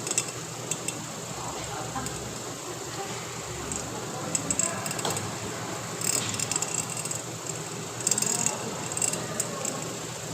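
Small metal parts and tools clinking and rattling as they are handled, in short clusters of clicks a few times over a steady background hum.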